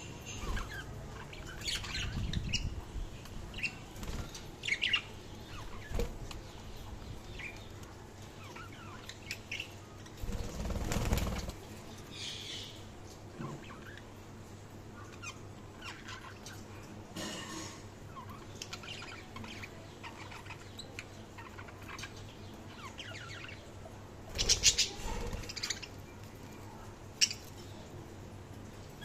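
Pet budgies (budgerigars) chirping and twittering in short scattered calls, with a few louder noisy bursts. The loudest burst comes near the end.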